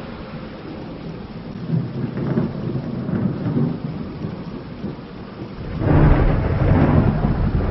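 Thunderstorm with rain and low rolling thunder. About six seconds in, a much louder peal of thunder breaks in.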